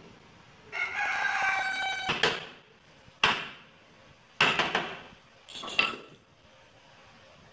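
A rooster crows once, for over a second, in the first third. Then a wooden mallet strikes a chisel cutting into a hardwood cabinet door panel: about half a dozen sharp knocks, roughly a second apart, some coming in quick pairs.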